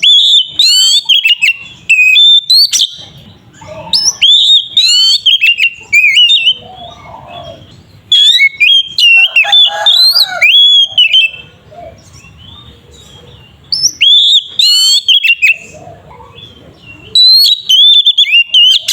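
Oriental magpie-robin (kacer) singing loudly in its full, open 'ngeplong' style. Bursts of two to three seconds of rapid sliding whistles and chattering trills come five times, with short pauses between them.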